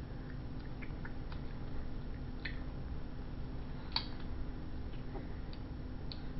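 Scattered faint, irregular clicks and taps from a toddler's fingers picking food off a plastic high-chair tray and eating, with a sharper click about four seconds in, over a steady low hum.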